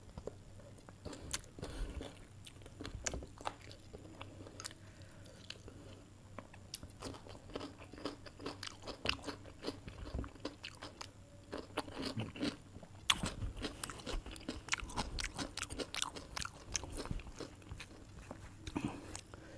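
A person chewing and crunching food close to the microphone, with many small crisp clicks and wet mouth sounds that come thicker and faster in the second half.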